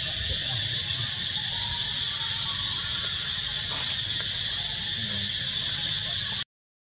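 Steady, high-pitched insect chorus with a low rumble beneath it, cutting out abruptly near the end.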